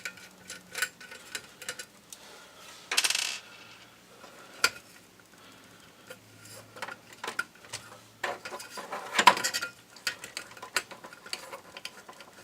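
Scattered clicks, scrapes and small metallic clinks of a flat screwdriver working screws out of the back of a Sears SR2000 electric typewriter's housing. There is a short rattling burst about three seconds in and a busier run of clicks near the nine-second mark.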